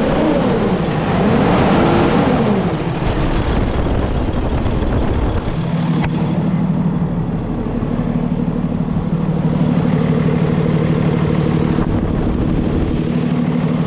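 Diesel engine of a 2013 Freightliner crane truck, heard with the hood open. In the first few seconds it is revved up and let fall back, then it idles steadily.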